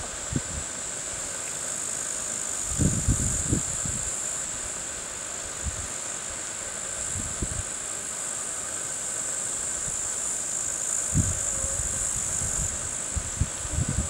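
Steady high-pitched chorus of insects chirring outdoors, with a few brief low rumbles on the microphone, around three seconds in, near eleven seconds and near the end.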